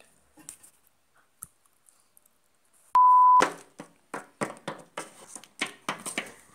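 A single steady electronic beep lasting about half a second, about three seconds in. Right after it comes a run of light taps, about three a second: small hard-plastic Littlest Pet Shop figures being hopped across a tabletop.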